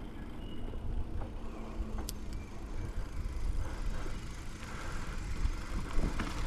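Wind rumbling on the microphone and tyre noise from a bicycle rolling along, with a few faint clicks.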